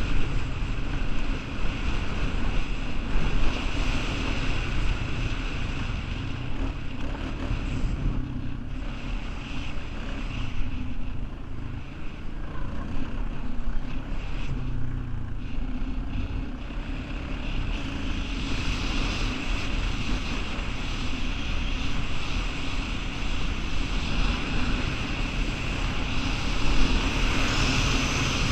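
Honda 420 ATV's single-cylinder four-stroke engine running under way on a dirt trail, with wind buffeting the microphone. The sound dulls for several seconds midway, then picks up again.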